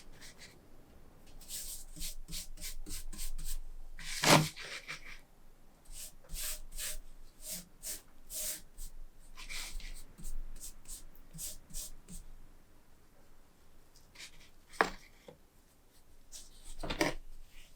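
A series of short scraping and rubbing strokes of hand work, with a sharp knock about four seconds in and two more knocks near the end.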